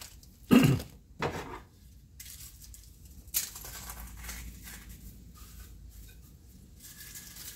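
Broken crackers shaken out of their plastic bag and scattered by hand over a casserole dish: two short, louder crinkles of the bag in the first second and a half, then faint rustling and light patter of crumbs.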